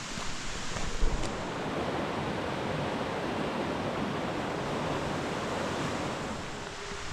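The Bode, a Harz mountain river, rushing steadily over its rocky bed. A single short knock comes about a second in.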